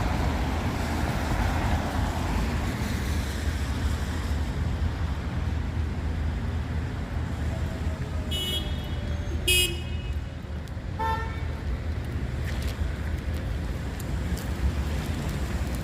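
Street traffic in the rain: a steady low rumble with a car's tyres hissing past on the wet road near the start. A little past halfway there are two short high squeaks, then a brief car horn toot.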